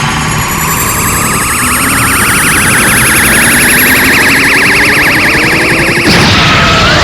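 Dragon Ball Kamehameha energy-beam sound effect: a long, loud, rushing tone with a fast warble, its high pitches slowly rising, giving way about six seconds in to a sudden explosion.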